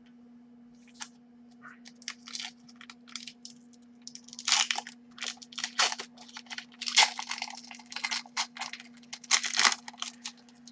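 Trading cards being handled and flipped through by hand: quick, crisp rustles and slides of card stock, sparse at first and coming thicker and louder from about four seconds in.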